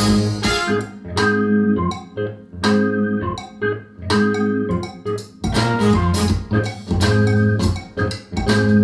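Music with guitar, a strong bass line and drum hits, played through a pair of Wigo WB 340 loudspeakers.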